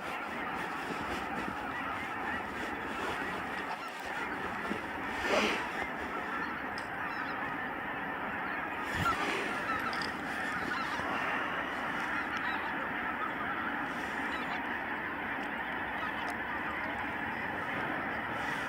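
A large flock of geese honking and calling continuously, many voices overlapping, with a couple of louder calls standing out about five and nine seconds in.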